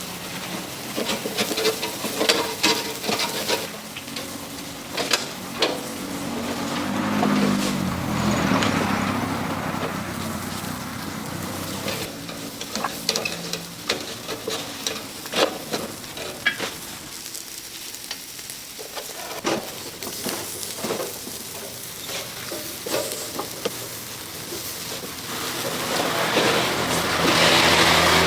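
Food cooking at a street stall: a steady sizzling hiss with repeated sharp clicks and clatter of utensils, the hiss swelling louder near the end.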